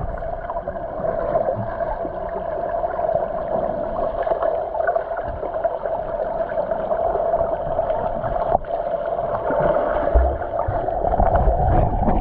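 Muffled underwater noise in a swimming pool, a steady hum and hiss of water, with a low thump about ten seconds in.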